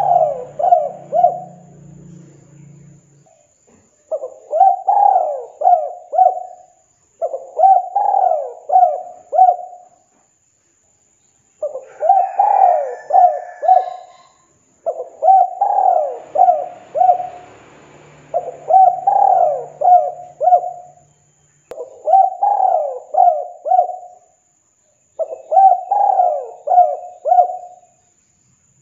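Spotted dove cooing in repeated phrases of four or five quick coos, each phrase about two and a half seconds long and coming every three to four seconds.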